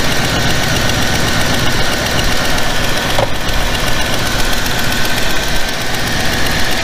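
A 1993 Chevrolet Camaro's LT1 5.7-litre V8 idling steadily while it warms up, its thermostat not yet open.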